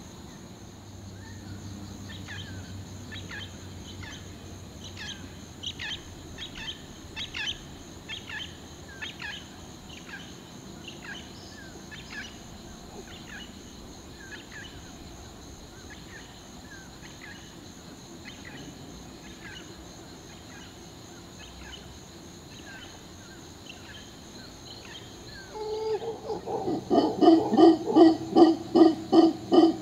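Mantled howler monkey calling: a loud series of low, pulsed grunting howls, about two a second, starting about 26 s in. Before that only faint repeated short chirps are heard.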